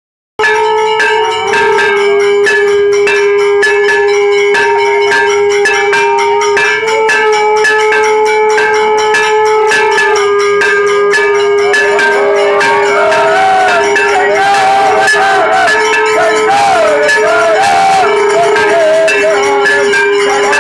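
Temple bells struck rapidly and continuously for aarti, over a steady ringing tone. From about halfway, voices singing the aarti join in.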